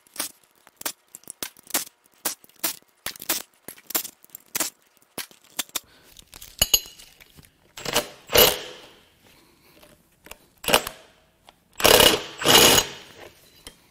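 Cordless power tool zipping bolts out of a big-block engine's intake manifold in short bursts: one about eight seconds in, a brief one near eleven seconds and a longer double burst near the end. Before the bursts come metal clinks of tools and parts being handled.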